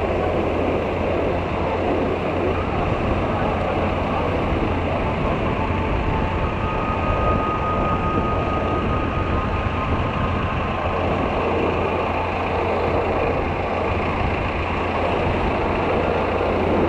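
Strong wind buffeting the microphone: a steady, loud rumbling rush.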